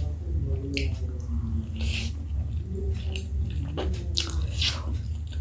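Close mouth sounds of chewing a momo dumpling: wet smacks and squishes, with sharper ones about two seconds and four seconds in. A steady low hum runs underneath.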